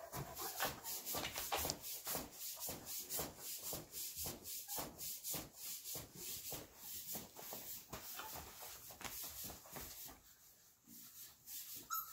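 Rhythmic rubbing or scraping, a few quick strokes a second, that dies down near the end.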